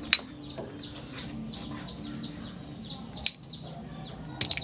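Tie rod end puller being fitted by hand onto a jeep's steering tie rod end: three sharp metal clinks, at the start, a little past three seconds in and near the end. Birds chirp over and over in the background.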